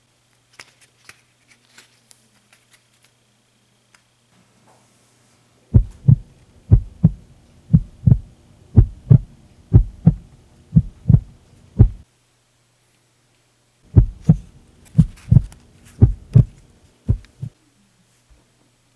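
A few faint clicks, then a heartbeat sound effect: loud, low paired thumps, lub-dub about once a second, in two runs with a pause of about two seconds between them, over a faint steady hum.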